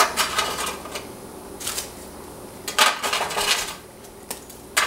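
Graham crackers being handled and set down in a metal cake pan: light clattering and rustling in a few short bursts.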